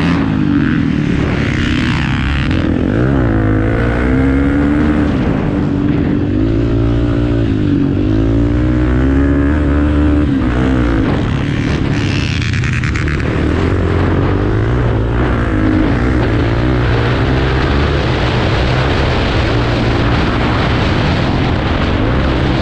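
Off-road motorcycle engines running hard, their pitch repeatedly rising and falling as the throttle is opened and closed.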